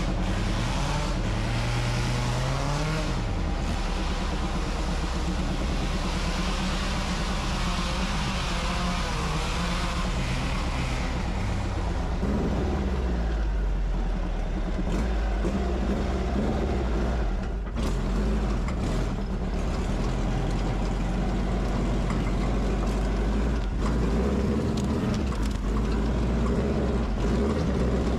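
Rail buggy engine running under load while climbing a hill, the revs rising over the first few seconds, then dropping and holding fairly steady.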